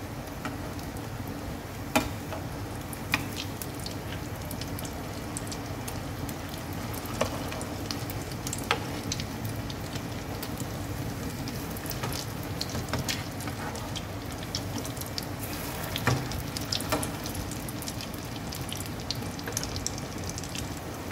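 Egg-coated potato patties shallow-frying in hot oil, a steady crackling sizzle. A handful of sharp clicks from the perforated metal spatula on the pan as the patties are turned over.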